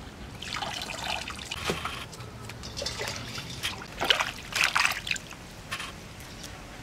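Hands swishing and splashing water in a stainless steel basin while washing lemongrass, red chilies and leaves: a run of short splashes and trickles, the loudest about four to five seconds in.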